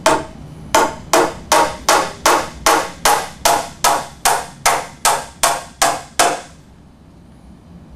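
Claw hammer driving nails through a timber plate into the end of a stud, about sixteen sharp, even blows at roughly two and a half a second, stopping a little after six seconds in.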